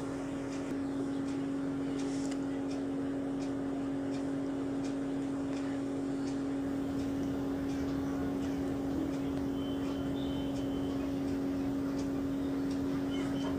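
A steady, unbroken hum at one pitch, with a few faint light clicks scattered through it.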